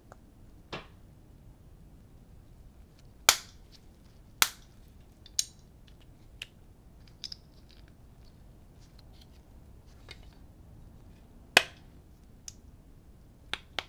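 Plastic parts of a Bandai model kit being pressed together by hand: a series of sharp plastic clicks and snaps, the loudest about three, four and a half and eleven and a half seconds in.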